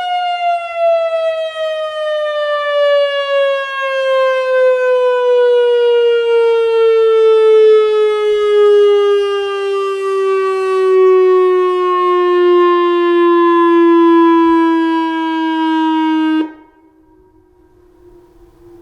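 Whelen WPS-2750 electronic tornado siren winding down at the end of its steady Alert tone: the loud tone slides slowly down in pitch for about sixteen seconds, then cuts off suddenly, leaving only a faint lingering tone.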